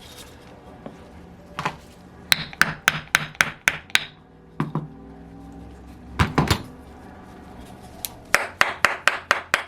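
A hammer tapping on a model glow engine part set on a block, trying to knock a piece free. It comes in two quick runs of about seven sharp taps each, with a few single knocks between them.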